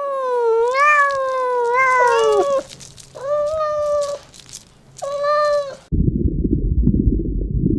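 A cat meowing: one long, wavering meow, then two shorter meows. About six seconds in, the meows stop and a low rumbling noise takes over.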